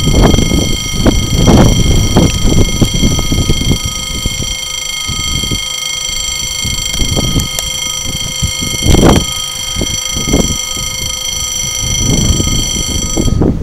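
Level-crossing warning bell ringing with a steady electronic tone, over gusts of wind buffeting the microphone; the ringing cuts off suddenly near the end. It signals that a train is approaching the crossing.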